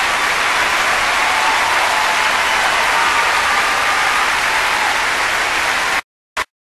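Audience applauding: steady dense clapping that cuts off abruptly about six seconds in, followed by one short burst.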